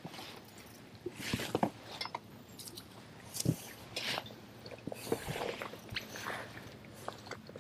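Rustling and swishing of thick floating marsh vegetation being grabbed and pulled by hand from a plastic kayak, with scattered clicks and knocks.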